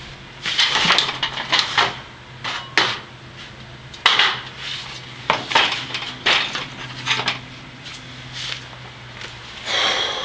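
Metal parts being handled and fitted on a metal frame: irregular clanks, knocks and scraping clatters, about a dozen spread out, over a low steady hum that stops near the end.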